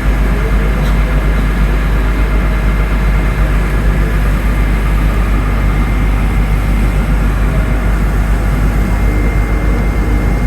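Boat engine running steadily, a loud, even drone with a deep rumble underneath.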